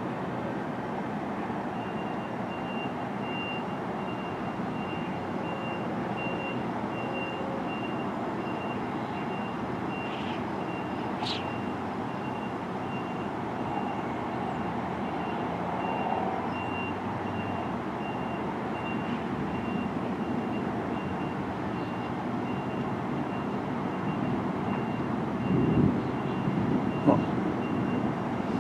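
A vehicle's reversing alarm beeping in an even, repeating high tone over a steady rushing background, with a few louder thumps near the end.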